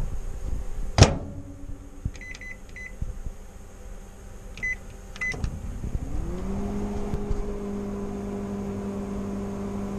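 A microwave oven door is shut with a sharp clunk about a second in, followed by several short keypad beeps as the cooking time is entered. About six seconds in, the inverter microwave starts: its hum rises quickly and settles into a steady tone while it runs.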